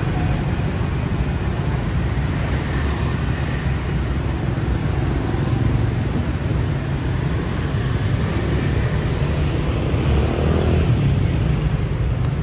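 Street traffic with motor scooters passing: a steady low engine and tyre rumble that swells a little as scooters go by, louder about ten seconds in.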